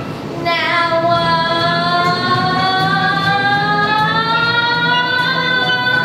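Girls singing a musical-theatre number, holding one long note that slowly rises in pitch, over musical accompaniment with a steady beat.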